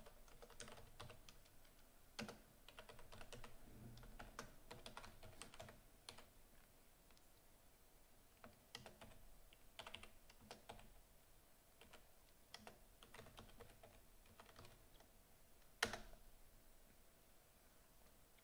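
Faint typing on a computer keyboard: irregular key clicks as a terminal command is typed out, with one louder keystroke near the end as the command is entered.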